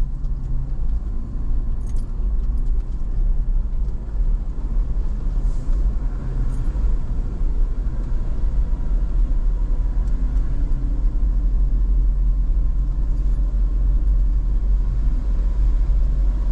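Toyota off-road vehicle driving slowly over a dirt track: a steady low rumble of engine and tyres, with a few faint clicks of rattles or stones.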